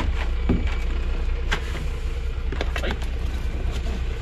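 A steady low motor hum, with a few light knocks and clatters scattered through it.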